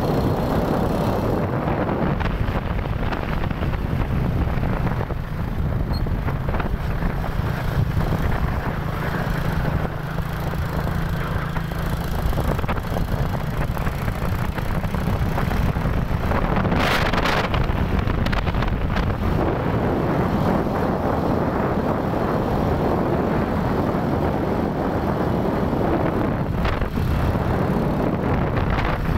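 Small motorcycle running at road speed, with wind buffeting the phone's microphone in a steady rush. A brief louder gust comes about seventeen seconds in.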